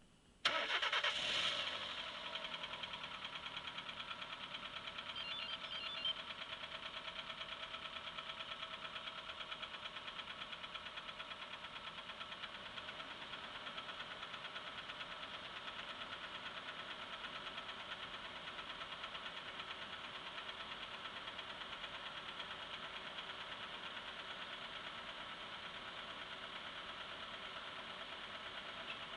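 Engine idling with a knock, the fault the recording is made to show. The engine comes in sharply about half a second in, runs louder for about a second, then settles into a steady idle with an even, fast rhythmic tapping.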